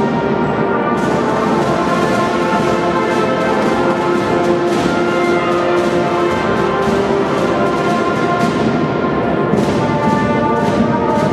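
Marching band playing: brass instruments holding sustained notes over a steady beat of snare and bass drums.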